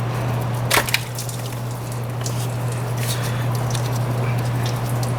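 Scattered light clicks and handling noises of hand work on engine-bay hoses and clamps, with one sharp click about a second in, over a steady low hum.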